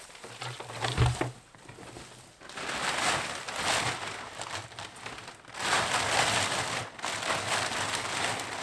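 Footsteps through brush near the start, then a plastic tarp crinkling and rustling for several seconds as it is crumpled and stuffed into a plastic barrel.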